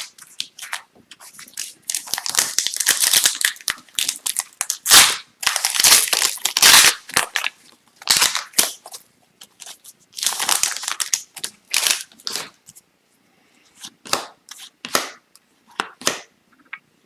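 Foil wrappers of Upper Deck Extended Series hockey card packs being torn open and crumpled, in irregular bursts of crinkling, with sharp clicks and snaps of cards being handled in between.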